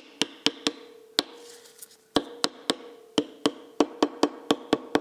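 Light, rapid taps of a plastic-headed mallet on a steel bearing shell, seating it into a Citroën U23 engine's main bearing cap. The taps come in runs of about four a second with a pause of about a second near the middle, and each leaves a short metallic ring from the cap.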